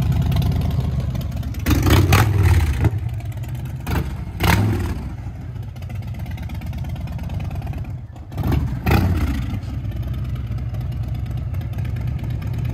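Harley-Davidson Fat Boy 114's Milwaukee-Eight V-twin through a Big Radius exhaust, running with a low rumble and revved in short throttle blips about two seconds in, again around four and a half seconds, and once more near nine seconds as the bike moves off, then holding a steady rumble.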